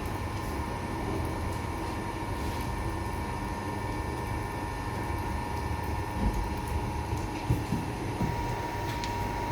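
Bakery equipment running with a steady low rumble and a faint steady whine. A few soft knocks come between about six and eight seconds in.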